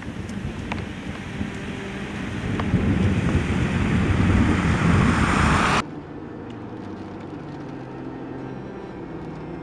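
A car approaching on a wet road, its tyre hiss and engine growing louder. About six seconds in it cuts off suddenly to a quieter, steady engine hum heard from inside the car's cabin.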